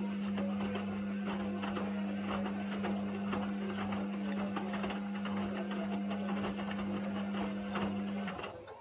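Indesit washing machine drum turning a load of wet towels during the wash: a steady motor hum under the soft thuds and sloshing of the tumbling laundry. The motor stops near the end and the drum comes to rest.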